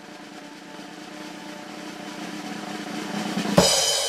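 Music: a drum roll over a held chord, swelling in loudness and ending on a cymbal crash about three and a half seconds in.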